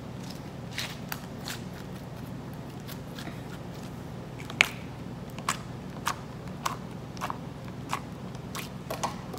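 Sticky glitter slime being kneaded and poked by hand on a tabletop, making small wet clicks and pops, about one a second in the second half.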